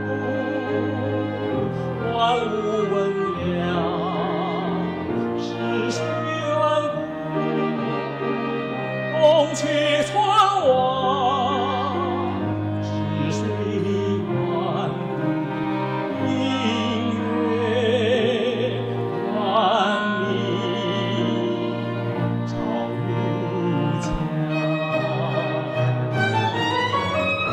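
Chamber ensemble of violin, cello, clarinet and piano playing a slow classical instrumental passage, with a bowed string line singing out with vibrato over sustained chords.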